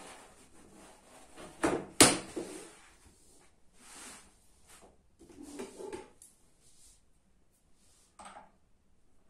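Camp bed being put together: the fabric rustles and scrapes as it is worked over the frame, with a sharp double clack of a frame tube about two seconds in. More fabric scraping follows, then a short knock near the end as a leg tube is fitted.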